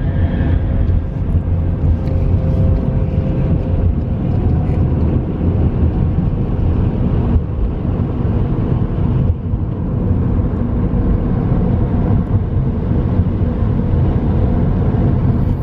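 Car being driven: a steady, low engine and road rumble.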